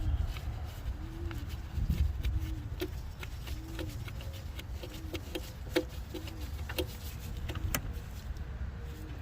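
Scattered metallic clicks and knocks of tools and fittings as the A/C suction hose is worked loose, over a steady low rumble, with a faint short rising-and-falling tone that repeats irregularly.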